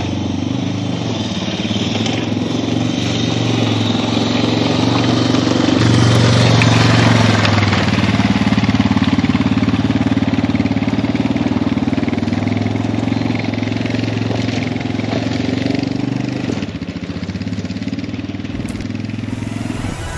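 Single-cylinder engine of a Suzuki DR650 dual-sport motorcycle running steadily as it rides a dirt trail, growing louder a few seconds in and easing off near the end.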